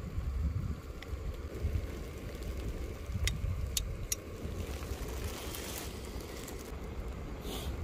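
Low, buffeting rumble of wind on the microphone, with a few light clicks about three to four seconds in.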